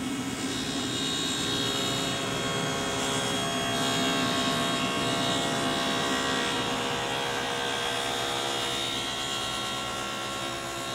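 Table saw with a 3/4-inch stacked dado blade running and cutting a wide, deep dado in dense wood as the board is fed slowly: a steady whine with many tones over a noisy wash, a little louder in the middle of the cut.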